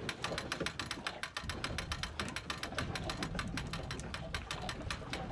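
Commercial bandit reel on the boat's gunwale winding in line with a rapid, even clicking, bringing up a hooked fish.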